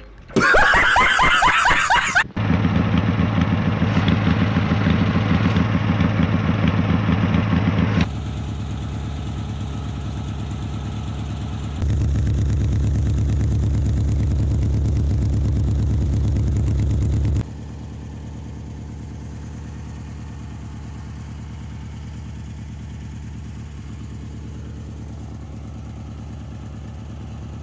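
Riding lawn mower engine running through a small aftermarket muffler, in several edited clips: a rising rev in the first couple of seconds, then steady running whose loudness jumps up or down at sudden cuts about 8, 12 and 17 seconds in.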